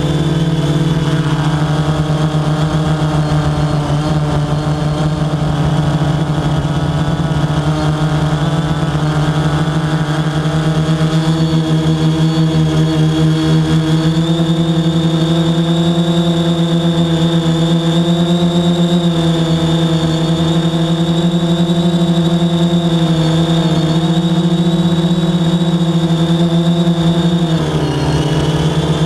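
Quadcopter drone's motors and propellers running with a steady hum. The pitch dips briefly near the end and comes back up.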